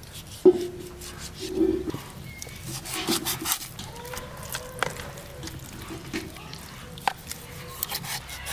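Kitchen knife cutting raw chicken into pieces in a plastic bowl: wet slicing and squelching with light knocks, joined by a few short animal calls.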